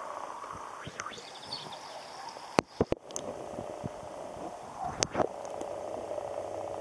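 Underwater sound of a garden pond picked up by a submerged waterproof camera: a steady muffled hum with sharp clicks, a quick cluster about two and a half seconds in and two more about five seconds in.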